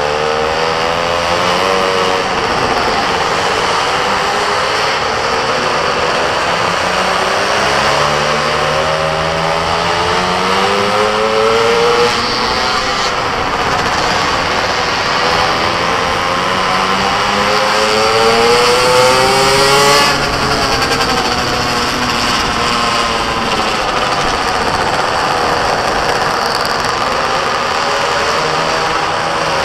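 Go-kart engine running hard on track, its revs climbing steadily to a peak about twelve seconds in and again about twenty seconds in, then dropping back and building again.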